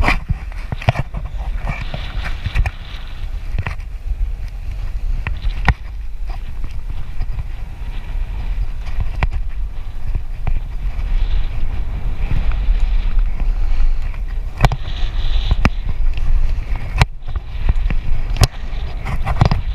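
Wind buffeting the microphone of a handlebar-mounted camera as a bicycle rolls along a paved road, a heavy steady rumble. Occasional sharp knocks and rattles come from the bike over bumps in the road.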